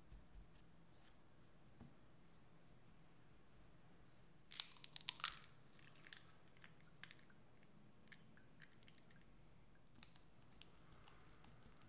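A silicone spatula working tart dough of flour, butter and egg in a stainless steel bowl, with light scattered clicks and scrapes. About four and a half seconds in, a burst of crackling clicks lasts about a second.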